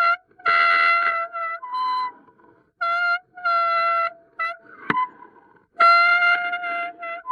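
Hydrophone recording of a series of horn-like tonal notes, each held under a second at a steady pitch with strong overtones, separated by short gaps, with one sharp click about five seconds in.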